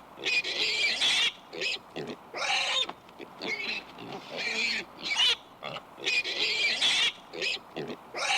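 Pig calling in a string of short, high-pitched squeals and grunts, each bout under a second long with brief pauses between.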